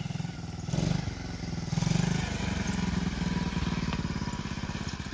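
Small 50 cc pit bike's single-cylinder engine running as it is ridden, with two louder surges of throttle about one and two seconds in, then settling to a steady run.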